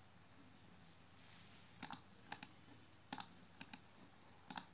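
Faint, sharp clicks of a computer pointing-device button, about nine in all from about two seconds in, several in quick pairs, as a context menu is opened and an item is clicked.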